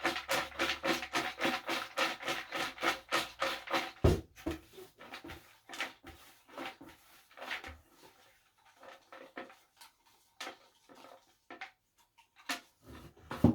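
Raffle drum spinning for the draw: a fast, even run of clicks, about five a second, that slows and thins out into scattered clicks as the drum coasts down. There is a heavier knock about four seconds in and another at the very end.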